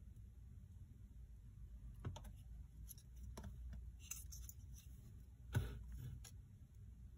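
Faint clicks and handling noises of a plastic model figure being held and turned over a cutting mat, with one louder knock about three quarters of the way through, over a low room hum.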